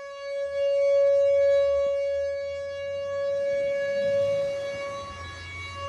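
Whelen Vortex R4 outdoor warning siren sounding a steady tone in a test. It holds one pitch while its loudness swells and fades.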